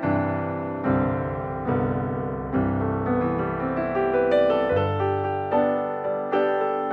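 Background music: piano or electric piano playing a gentle melody, a new chord or note struck about every second.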